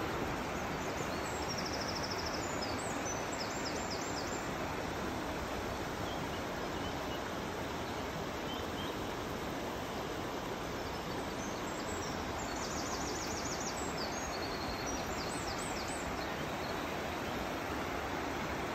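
Shallow river running steadily over a stony bed, a constant rushing of water. A small songbird sings short, rapid trilling phrases above it, about a second in and again near twelve seconds in.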